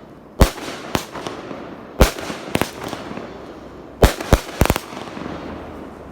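A 'Color Me Purple' consumer firework cake firing, with about eight sharp bangs from its shots going off at uneven intervals, several of them close together about two thirds of the way through.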